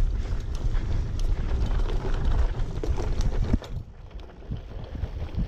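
Wind buffeting the camera microphone in a steady low rumble, with scattered clicks and rattles from a bicycle bumping along a dirt trail. The sound drops noticeably quieter a little over halfway through.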